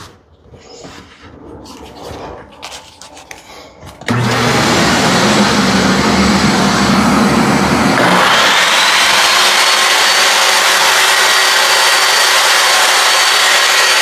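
Table saw switched on about four seconds in after a few light handling sounds, its motor coming up to speed with a high whine rising about eight seconds in, then running steadily with the blade not yet in the wood.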